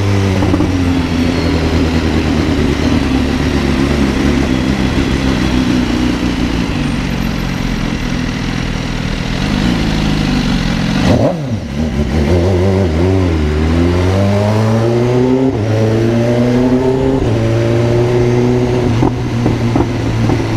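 Car exhaust fitted with a 'granada' muffler, the engine droning under way. Its note sinks slowly for about ten seconds, dips sharply about halfway through, then climbs for a few seconds as the car accelerates and holds steady.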